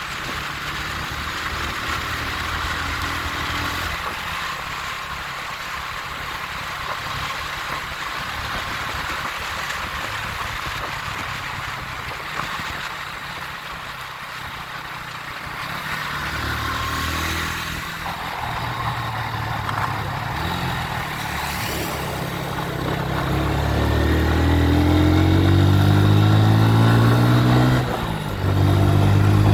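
A motor vehicle on the move. A steady rushing noise gives way, about halfway through, to an engine note that rises as the vehicle speeds up and gets louder. The engine dips briefly near the end, then picks up again.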